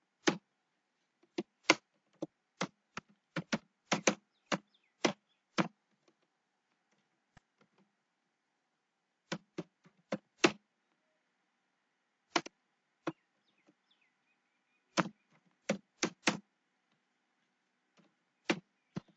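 Computer keyboard keystrokes: slow, irregular clicks of single keys being typed, with a pause of about three seconds near the middle.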